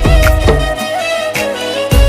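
Background music from a Sinhala song: a long held melody note over deep drum hits.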